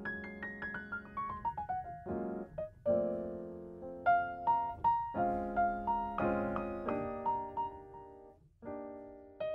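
Piano music: a quick falling run of single notes, then a slow melody of single notes over held chords.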